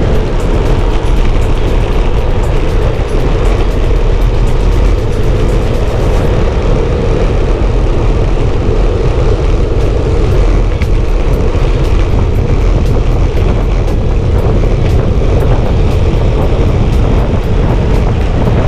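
Wind buffeting the microphone of a camera carried by a cyclist riding at speed: a loud, steady rumble heaviest in the lows.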